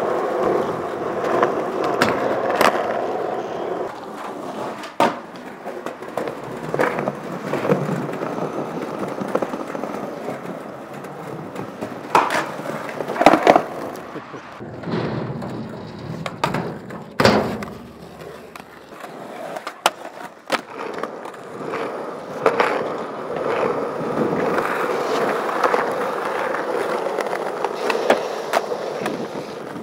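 Skateboard wheels rolling over concrete and asphalt, broken every few seconds by sharp clacks as the board pops and lands during tricks.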